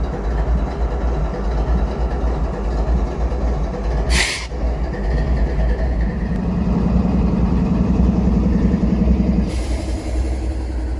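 Diesel-electric freight locomotives idling close by, a steady low rumble. About four seconds in comes a brief sharp hiss of air. In the second half a louder buzzing hum from the engines lasts about three seconds and then stops suddenly.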